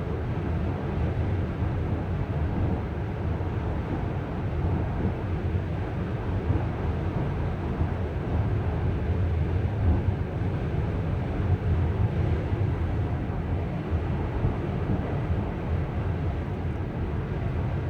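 Steady low rumble of a 2015 Chrysler Town and Country minivan being driven, with no distinct knock or whine standing out.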